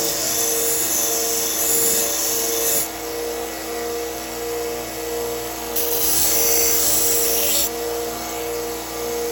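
A 1x30 belt sander running steadily, with a knife blade drawn across the abrasive belt in two grinding passes: a hissing rasp over the motor hum until about 3 seconds in, and again from about 6 to 8 seconds.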